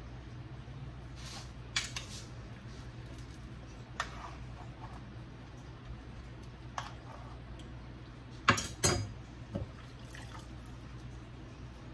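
Metal kitchen utensils clinking against a pan of chicken as it is stirred and turned, in a few scattered clinks with two loud clatters close together about eight and a half seconds in, over a steady low hum.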